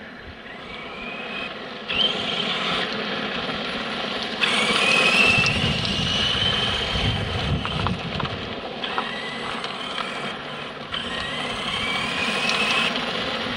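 Radio-controlled off-road model car driving on gravel: its motor whines, rising in pitch as it speeds up, with sudden bursts of throttle about 2, 4.5 and 11 seconds in.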